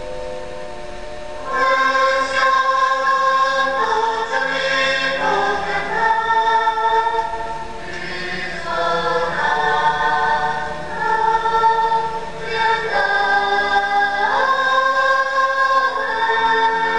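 Background music: a choir singing slow, sustained chords, growing louder about a second and a half in.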